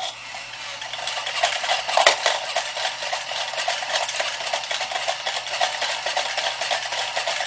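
Choken-Bako dog coin bank running its eating routine: the plastic dog dips its head into the bowl to swallow a coin, with a continuous crunchy, rattling chewing noise that starts suddenly and keeps going.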